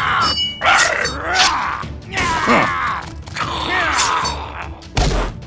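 Animated fight sound effects: groaning and grunting creature voices with sweeping pitch glides, layered over background music, and a heavy thud about five seconds in.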